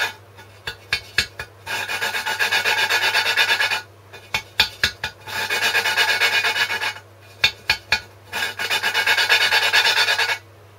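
Exhaust valve of a Briggs & Stratton 5 hp engine being lapped into its seat: the valve is spun back and forth by hand on a lapping stick, grinding against the seat through gritty lapping paste in three spells of about two seconds each. Between the spells come light taps as the valve is lifted and dropped back onto the seat.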